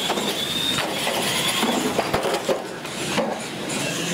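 Radio-controlled monster trucks racing on a concrete floor: a steady run of motor and tyre noise with a high whine near the start and a few sharp knocks.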